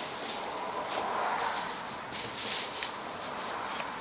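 A steady, high-pitched pulsing chirp runs under faint clicks and rustles of parts and tools being handled.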